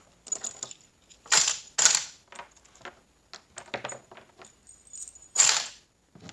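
Loose metal parts of a 4L60E automatic transmission clinking and clattering as they are handled and set down, a string of sharp clinks with three louder ones, the last near the end.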